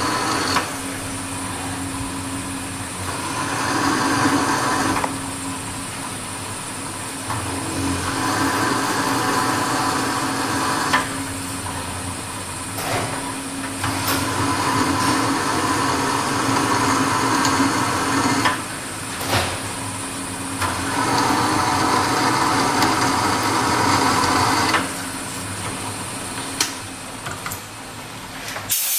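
Bench drill press running steadily while a twist drill cuts into a metal block held in a machine vise. The cutting noise comes and goes in stretches of a few seconds, starting and stopping abruptly.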